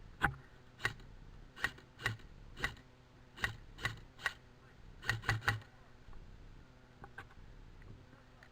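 Airsoft rifle firing single shots, a sharp click with a low thud each time, about one every half second, ending with three quick shots at about five seconds; then it stops.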